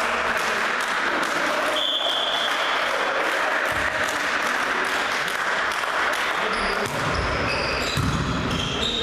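Indoor volleyball in a reverberant sports hall: a steady din of voices and movement, with a short high whistle about two seconds in. From about seven seconds the rally starts: ball hits, heavy footfalls thudding on the wooden floor, and short sneaker squeaks.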